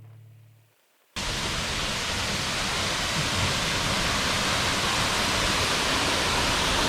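Faint music fading out, a moment of silence, then an abrupt cut to the steady rushing of a waterfall, growing slightly louder.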